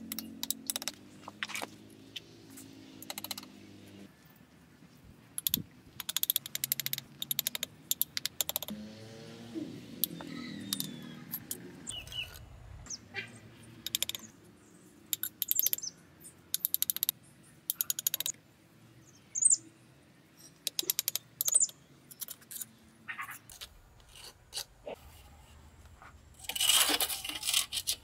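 Steel masonry trowel tapping and scraping on bricks and wet mortar, in bursts of short clicks, with a longer scrape near the end as mortar is spread.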